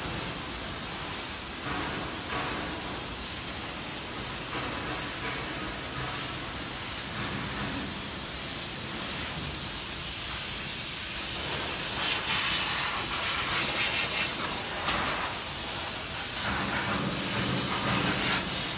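Steady hissing noise, getting somewhat louder about two-thirds of the way through.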